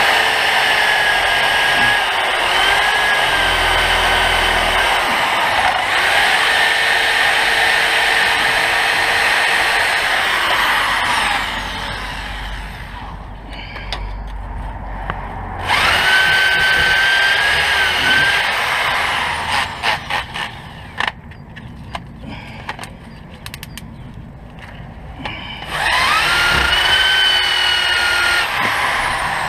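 Hand-held power tool running in long bursts, its motor pitch dipping and recovering under load. Between bursts comes a run of sharp clicks and taps on metal.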